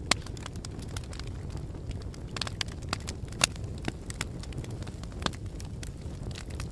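Fire crackling: irregular sharp pops and snaps over a steady low rumble, with two louder pops, one at the very start and one about halfway through.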